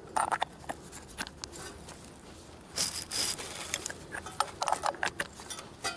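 1956 Packard 374 V8 being turned over by hand with a wrench on the crankshaft bolt: scattered metal clicks and scraping, with a louder rasping burst about three seconds in. The long-stuck engine now rotates past a rusty spot on one cylinder.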